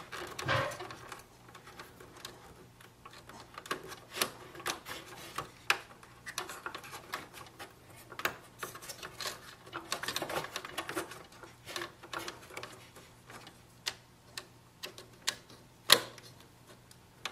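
Irregular light clicks, taps and rustling as plastic ink tubes are pressed into their guides in the printer's plastic housing, with one sharper click about 16 seconds in.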